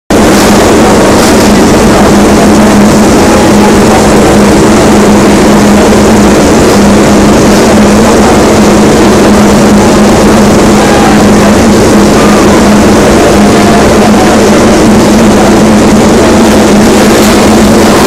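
Engines of several 1000cc four-cylinder MotoGP racing motorcycles running together on the starting grid: a loud, steady, blended engine note.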